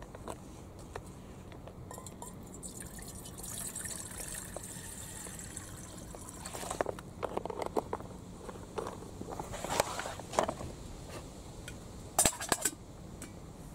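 Water being poured into an empty MSR Seagull stainless steel pot, splashing unevenly as it fills. Near the end the stainless lid is set on the pot with a few sharp metallic clinks.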